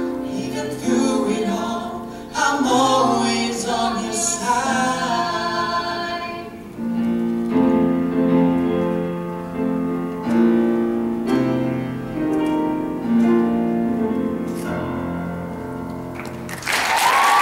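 Male and female voices singing the closing line of a duet over grand piano, then the piano playing the last chords alone, each chord struck and left to fade. About a second before the end, audience applause and cheering break out.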